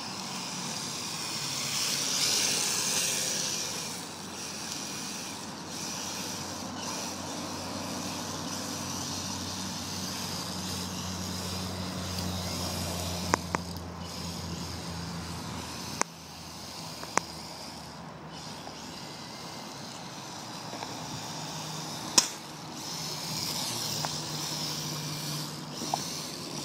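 Redcat radio-controlled drift car driving and drifting, a steady motor and tyre noise that swells about two to three seconds in. Several sharp clicks or knocks sound in the second half.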